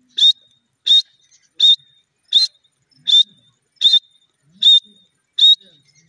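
Grey francolin calling: a short, loud, high-pitched note repeated evenly about every three-quarters of a second, eight times.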